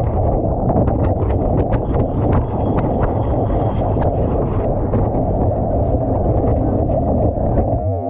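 Whitewater and wind rushing over a board-mounted action camera as a tow surfer rides down a big wave face. Spray and chop make a constant, rapid spatter of sharp ticks against the camera housing.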